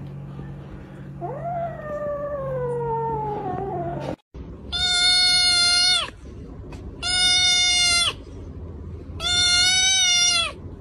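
A cat's long meow sliding down in pitch, then, after a cut, a cat yowling three times, each call steady and about a second and a half long.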